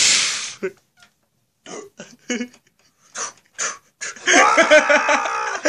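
A voice making creature-like noises rather than words: a loud breathy hiss at the start, a few short vocal sounds, then a wavering, pitched cry from about four seconds in.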